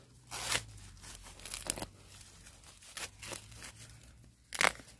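Bamboo sheaths and dry bamboo litter crackling and tearing in a handful of short bursts as a young bamboo shoot is worked free by hand, with the loudest crack near the end as the shoot breaks off at its base.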